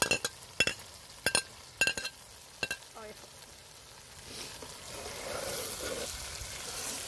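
Mixed vegetables sizzling in a black nonstick frying pan while a metal spatula stirs them. About six sharp, ringing metal clinks against the pan come in the first three seconds. After that the sizzle and stirring grow steadier and louder.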